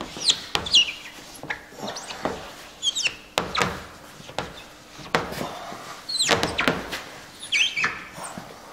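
Hands pressing and rubbing an adhesive chrome trim strip onto the edge of a car tailgate: scattered clicks and taps, with short high squeaks that drop in pitch as fingers and a cloth rub over the glossy surface.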